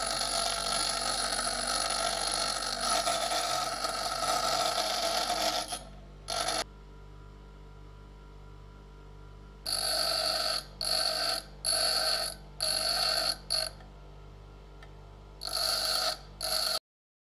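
Einhell bench grinder running as a steel punch is ground against the wheel: about six seconds of continuous grinding, then the motor running quieter with several short grinding touches of under a second each. The punch tip is being ground down to a 3.2 by 3.2 square. The sound cuts off abruptly near the end.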